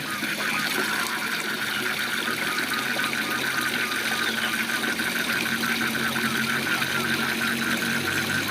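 Waterfall rushing steadily, with a frog calling in a rapid, even run of pulses, about seven or eight a second.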